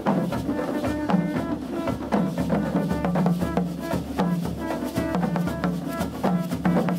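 Carnival street drum band (mas a po): many hand-held skin drums beaten with sticks in a fast, dense rhythm, with a repeated low held note sounding over the drumming.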